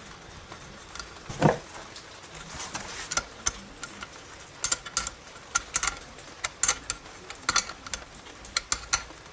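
Irregular short metallic clicks and clinks of a wrench working the screws of a motorcycle generator stator coil in its cover, undoing the coil for replacement. One heavier clunk comes about a second and a half in.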